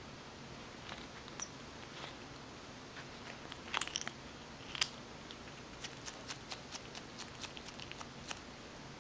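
Skunk chewing food, a series of short crunches and clicks: a cluster a little before the middle, one sharp crunch just after, then a quick run of small clicks through most of the second half.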